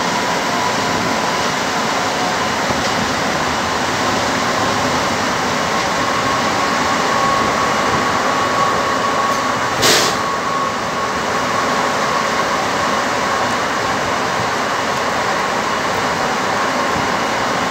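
Interior of a moving metro train running through a tunnel: a steady rolling rumble and rush with a faint steady whine, and one short sharp burst about ten seconds in.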